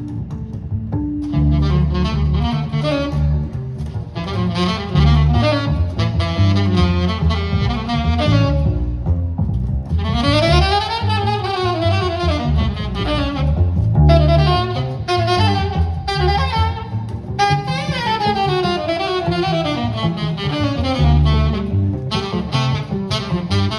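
Live jazz: a saxophone plays a flowing melodic line over a double bass line.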